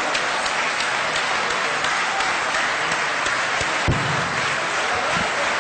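Audience applauding: many hands clapping in a steady, dense patter, with a brief low thump about four seconds in.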